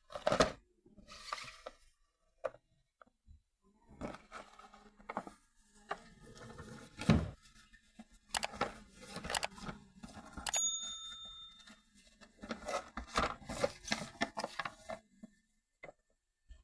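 Toy car packaging being opened and handled: irregular crinkling, tearing and clicking. There is one short ringing ding about ten and a half seconds in.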